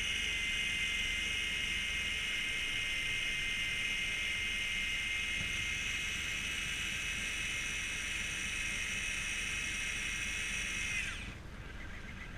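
Shimano Plays 800 electric fishing reel's motor winding in line with a steady high whine. It slows with a falling pitch and stops about eleven seconds in.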